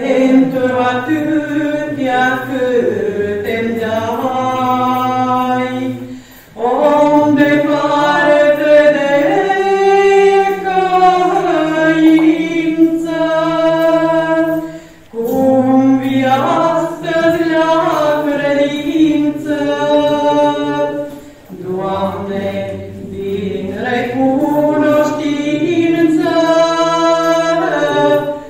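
A choir singing a Romanian Orthodox pricesnă (Lenten devotional hymn) unaccompanied, in long sustained phrases with three brief pauses between them.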